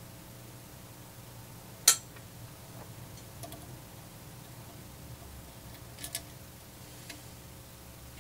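Sharp clicks and light ticks of a resistor's wire leads being bent and fitted into a guitar-amp eyelet board held in a metal helping-hands clamp. One loud click comes about two seconds in, a few small ticks follow, and a quick double click comes about six seconds in.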